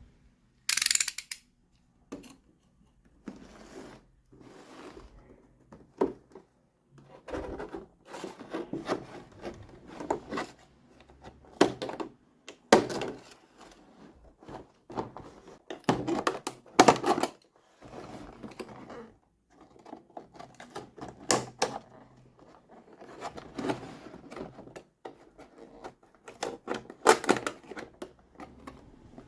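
Small plastic toy pieces and their packaging being handled, making irregular clicks, taps and rustling, with a short crackly rustle about a second in.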